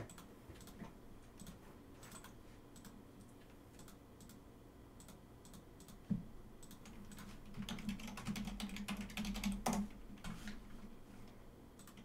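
Faint computer keyboard typing: scattered keystrokes, coming faster in the second half.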